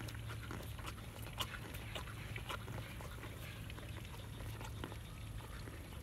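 Miniature horse chewing carrot close up: irregular crunches and wet mouth clicks, coming thick for the first two or three seconds and then more sparsely.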